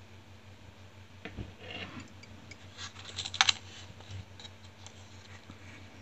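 Light clicks and taps from a circuit board with a finned metal heatsink being handled and turned over in the hands. The loudest is a quick cluster of clicks about three and a half seconds in.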